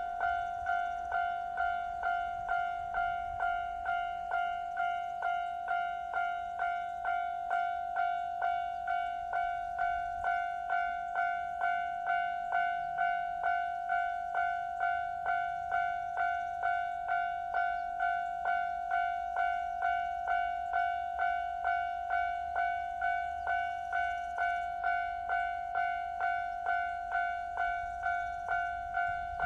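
Railway level-crossing warning bell ringing steadily, evenly struck about three times every two seconds, each strike a ding on two pitches: the signal that the crossing is closed for an approaching train.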